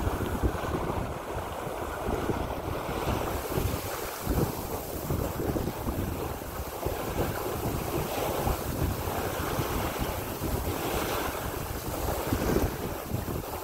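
Water rushing and splashing along the hull of a San Juan 23 sailboat moving under sail, with wind gusting on the microphone in uneven low rumbles.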